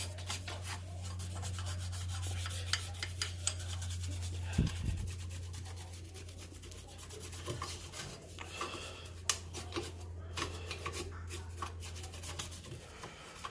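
A toothbrush scrubbing crushed rust and brake dust off a car's rear brake parts: quick, irregular scraping strokes. A steady low hum runs underneath.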